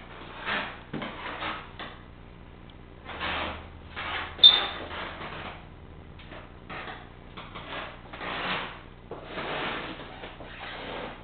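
A series of irregular rubbing, rustling scrapes, each from a fraction of a second to about a second long, with one sharp click about four and a half seconds in.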